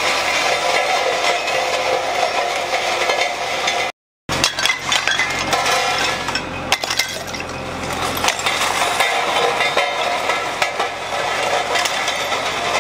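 Road roller's steel drum rolling over glass liquor bottles and crushing them: a continuous run of glass cracking, breaking and clinking. The sound cuts out briefly about four seconds in.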